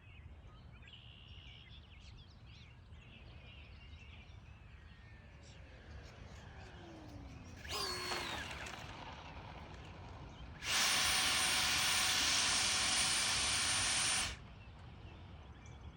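70mm electric ducted fan of a Freewing F-22 Raptor RC jet on approach: a whine falling in pitch, a brief surge of fan noise about eight seconds in, then a loud steady fan rush with a high whine for about three and a half seconds that cuts off sharply. Faint bird chirps in the first few seconds.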